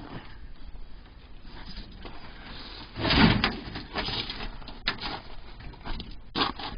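Fuel tank still full of fuel being shifted and slid out from under a GMC Jimmy, scraping, with fuel sloshing inside. The loudest scrape comes about three seconds in, and sharp knocks follow near the end.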